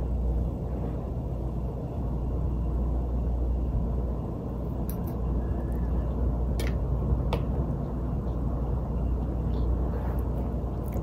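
A steady low rumble, with a few light clicks of a metal fork against a plastic bowl while eating noodles.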